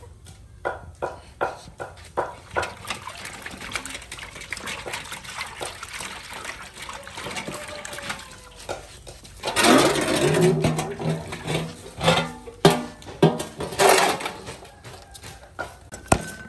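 Hands slapping and splashing water in a large aluminium basin: a run of small splashes, then a louder burst of sloshing about ten seconds in, followed by a few more sharp splashes.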